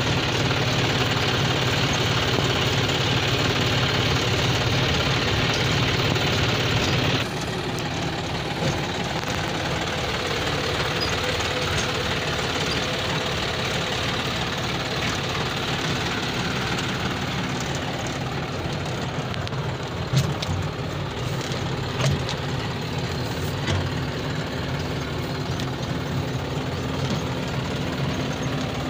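John Deere 5105 tractor's three-cylinder diesel engine running steadily while pulling a row weeder through the soil. The sound drops abruptly in level about seven seconds in, and a few sharp knocks come later.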